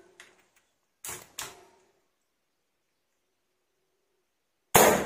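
PCP air rifle being test-fired: two lighter sharp clicks about a second in, then a loud sharp discharge of air near the end that dies away over about half a second. The reservoir is running low on pressure.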